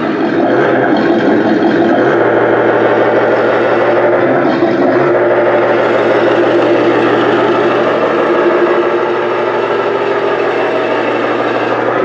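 Engine sound from a radio-controlled toy vehicle, most likely its built-in sound unit, with a steady running note that drops a little in pitch about two seconds in.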